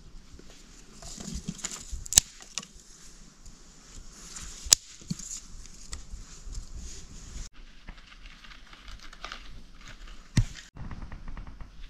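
Dry twigs and sticks being handled and laid into a hole dug in the earth, rustling and crackling in the hands and against the soil, with three sharp clicks or snaps standing out.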